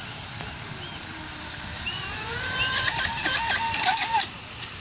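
RC speedboat on a 4S LiPo pulling away at full throttle: the electric motor and propeller whine rises in pitch and grows louder, then wavers as the hull skips across the water, with a hiss of spray. The sound cuts off sharply near the end. Birds chirp faintly in the background.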